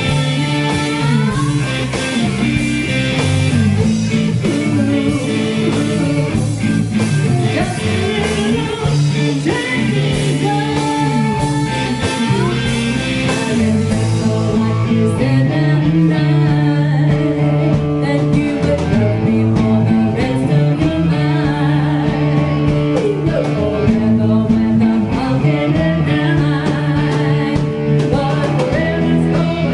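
A rock band playing a song live, with electric guitar, bass and drums under singing. The bright high wash thins out about halfway through.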